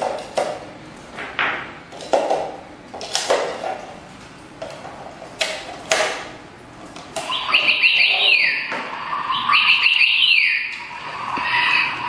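Batteries clicked into the plastic battery compartment of a toy bird cage's base and the cover snapped shut: a series of sharp clicks and knocks. About seven seconds in, the toy's electronic bird starts chirping in quick trills and falling whistles.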